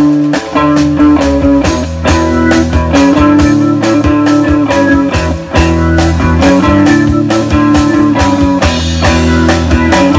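Rock band playing: an electric guitar over bass and a drum kit keeping a steady beat.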